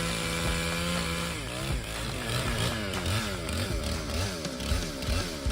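Chainsaw cutting an oak trunk. It runs at a steady high pitch for about a second and a half, then its engine pitch rises and falls quickly, about three times a second, as it works through the wood.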